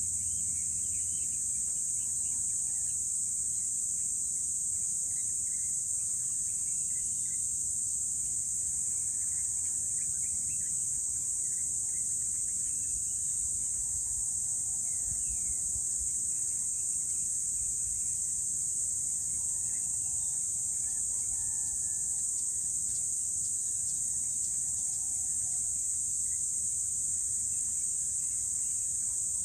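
A steady, high-pitched chorus of insects that never lets up, with faint scattered bird calls and a low background rumble underneath.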